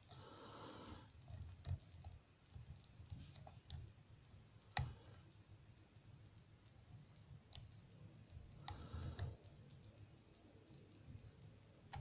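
Faint, scattered metallic clicks of a lock pick working the pins inside a brass pin-tumbler lock cylinder held under a tension wrench, about half a dozen sharp ticks, the loudest about five seconds in. They are the pins being lifted and set while picking a hard security lock.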